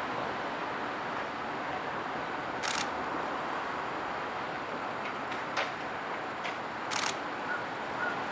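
Steady rushing noise with a few sharp clicks. Near the end, a Japanese level-crossing warning bell starts to ring faintly, about two strikes a second.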